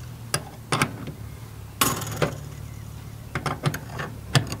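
Sharp, irregular metal clinks from a sailboat's lower-shroud turnbuckle and its fittings as it is turned to tighten the shroud, over a steady low hum.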